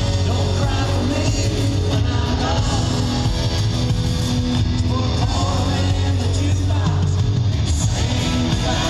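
Live country-rock band playing in an arena, heard from among the crowd: guitars over a steady bass, with a voice singing.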